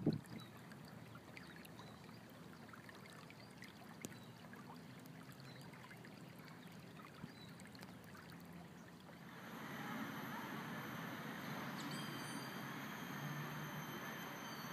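Shallow stream water trickling faintly over rocks. About nine seconds in, it gives way to louder outdoor background noise with a few thin, steady high tones.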